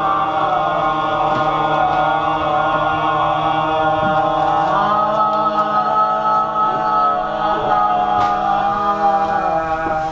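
Several voices chanting together in long, held droning tones. A new steady low note joins about five seconds in and stops shortly before the end.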